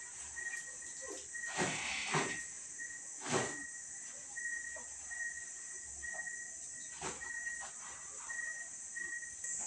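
Wet laundry being wrung and handled by hand over a plastic bucket: a few soft swishes and splashes of water, a second or more apart.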